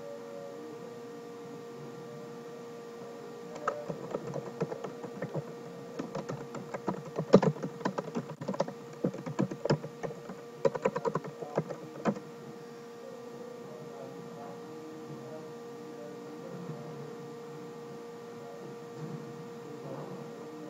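Typing on a computer keyboard: a quick run of key clicks starting a few seconds in and stopping about halfway through, over a steady hum.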